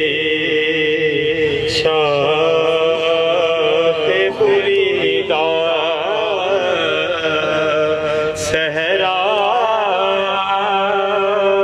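A man's voice singing an Urdu naat (devotional praise poem) through a microphone. He holds long notes and bends them in slow, ornamented runs.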